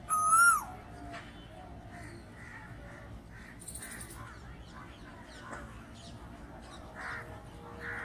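Male Asian koel giving one loud call about half a second long right at the start, its pitch rising slightly before dropping off at the end.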